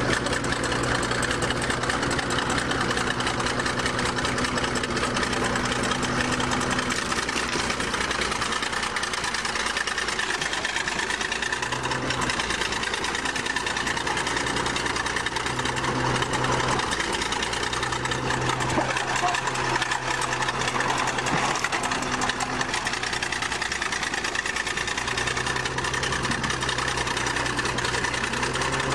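Old crawler bulldozer's engine running steadily with a chugging beat as the machine drives forward and climbs its tracks onto a car; its low note drops away and comes back several times.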